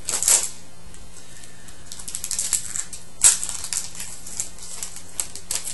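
A hockey card pack being opened by hand: the wrapper crinkles and tears, and the cards click and slide against each other, with a sharp crinkle at the start and another about three seconds in.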